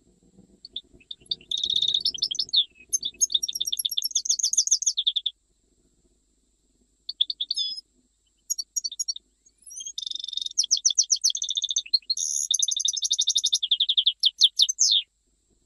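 European goldfinch of the Jijel song type singing: long runs of fast, rapid-fire trills and twitters. It sings one long phrase, pauses briefly with a few short notes, then a second long phrase that stops about a second before the end.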